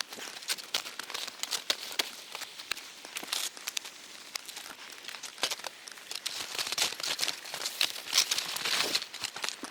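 Dense, irregular crinkling and crackling close to the microphone, like stiff fabric being rubbed and crumpled.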